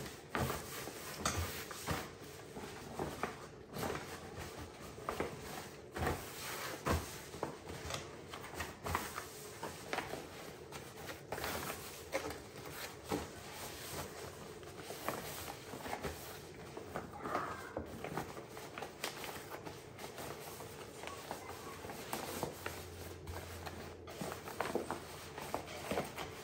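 Rustling and soft irregular clicks of large reusable plastic shopping bags being handled and folded on a kitchen counter, with a faint steady hum underneath.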